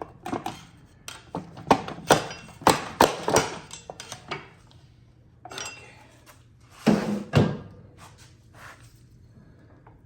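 Metal clunks and knocks of an axle shaft being worked out of a GM 9.5-inch rear axle housing, with two heavier thunks about seven seconds in.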